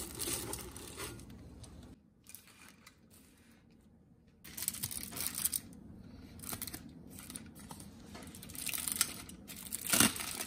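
Aluminium foil being handled and peeled open, crinkling in irregular bursts, with the loudest crackle near the end.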